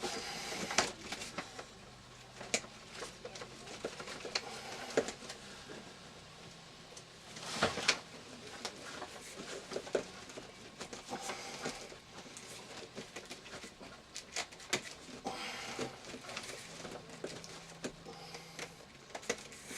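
Irregular scraping, knocking and rustling of 8-gauge wire being pushed through a tube already packed with thick cables and worked around its bends, with a sharper knock about eight seconds in.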